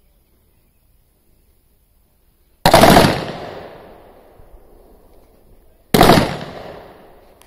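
Two single shots from a 5.56 mm Beryl assault rifle, a little over three seconds apart, each a sharp crack trailing off over about a second.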